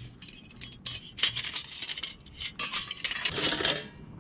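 Thin metal panels of a Kampmate folding wood-burning camp stove clinking and scraping against each other as they are slotted together, a run of sharp clinks with a few longer scrapes.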